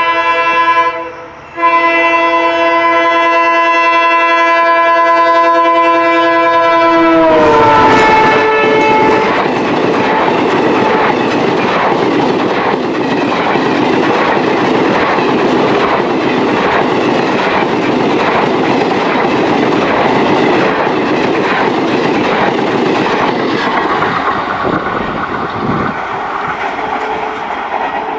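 Express train passing at speed. The locomotive's horn sounds a steady multi-note chord, broken for a moment about a second in; it drops in pitch as the locomotive goes by about seven seconds in and stops soon after. Then the coaches rush past with a rhythmic clatter of wheels over the rail joints, fading near the end.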